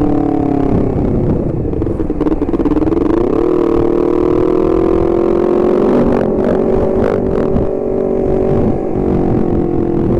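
Honda CBR250RR parallel-twin engine heard from on the bike while riding, holding a steady note. Its pitch drops about a second in and climbs back up around three seconds in. A few short knocks come from the bike near the middle.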